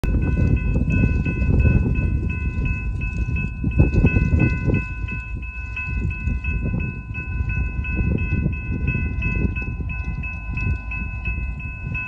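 Wind buffeting the microphone in gusts over the low rumble of an approaching Norfolk Southern diesel locomotive. Over it a bell rings rapidly and steadily, about three strokes a second.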